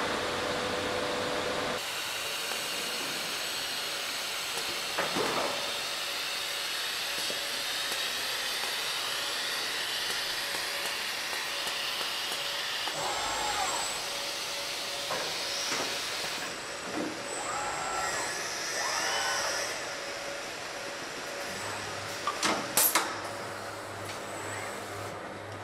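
Car-factory machinery noise: a steady hiss of air and machinery. Robot motors whir up and down in pitch a few times, and a few sharp metallic clicks come near the end.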